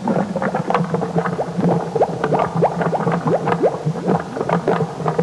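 Bubbling water: a quick, continuous run of short rising bloops over a low steady hum.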